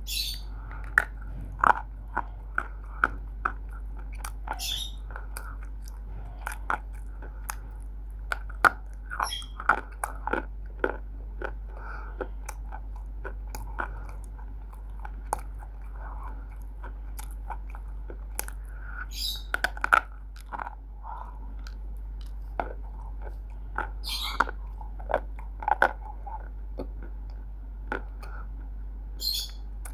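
Close-up chewing and biting of crunchy roasted multani mitti (fuller's earth clay), a dense run of irregular sharp crunches with a brief high crackle every few seconds.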